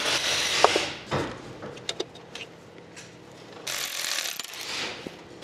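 Ratchet wrench clicking and tools clinking on metal parts in an engine bay during reassembly: a dense run of clicking for about the first second and again near four seconds, with single sharp clicks between.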